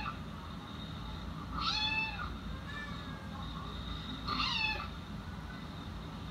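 Cat meowing in high-pitched calls: two clear meows about two and a half seconds apart, with a fainter short one between them.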